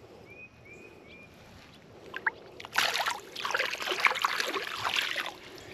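Water splashing and sloshing at a pond's edge as a hooked fish is held in the water and released by hand. It starts about halfway in and goes on for nearly three seconds in an uneven, choppy run.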